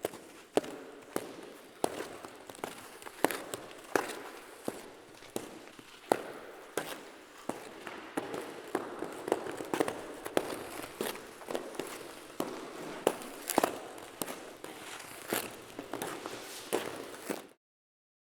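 Footsteps on ice in ice skates: skate blades striking and scraping the ice in a walking rhythm, about one and a half steps a second. The sound cuts out suddenly near the end.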